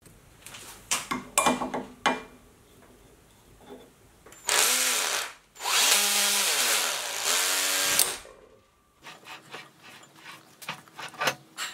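Metal tools clinking and knocking, then a hand-held power tool running in two bursts of about one and two and a half seconds, its pitch sweeping up and down, then more light clicks.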